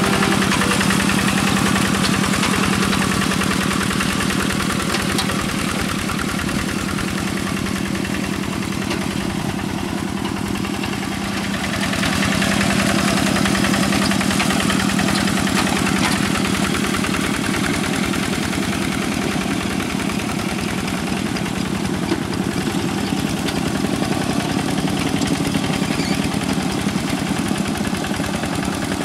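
Single-cylinder diesel engine of a Quick G1000 two-wheel hand tractor running steadily under load, with a fast, even chug, as its iron cage wheels churn through a flooded rice paddy. It eases off slightly around ten seconds in, then comes back up.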